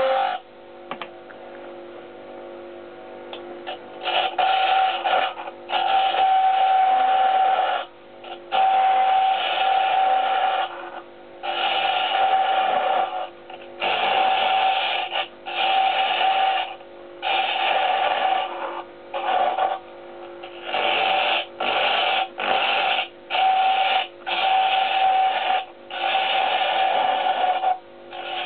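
Small wood lathe running with a hand tool cutting the spinning mahogany in repeated passes: each cut is a loud, even-pitched whine lasting a second or two, with short pauses between, over the motor's steady hum.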